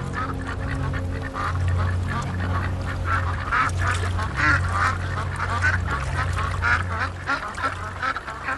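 Mallard ducks calling, many short calls in quick succession, busiest in the second half, as drakes chase and press a female on the water. A steady low hum runs underneath.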